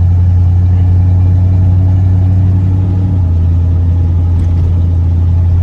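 1979 Corvette's 350 L48 small-block V8, breathing through an Edelbrock carburetor and Flowmaster exhaust, idling with a deep, steady note, heard from inside the cabin; the idle settles slightly lower about three seconds in. It is running smoothly while still warming up in cold weather.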